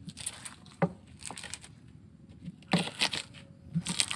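Pestle pounding and crushing raw garlic, shallots, chillies and tomato in a cobek mortar while grinding a spice paste: a run of irregular crunching strikes, the loudest about three seconds in.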